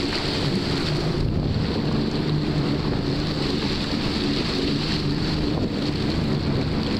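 Jet ski engines running steadily at speed, a continuous drone, with wind buffeting the microphone and water rushing past the hull.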